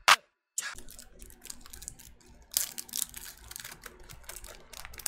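A sharp click right at the start, then plastic shrink wrap being picked at and peeled off a CD jewel case: irregular crinkling and small clicks, a little louder about two and a half seconds in.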